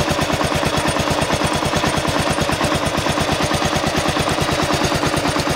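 Kawasaki KLR650's single-cylinder four-stroke engine running at a steady idle with a loud, even clacking, about eight clacks a second, in time with the engine: the engine clack ('clac moteur') the owner is recording.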